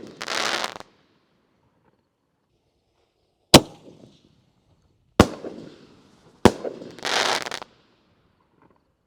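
6-inch double-break firework canister shells going off: a short hissing rush at the start, then three sharp booms spaced a second or two apart, the last followed by another half-second hiss.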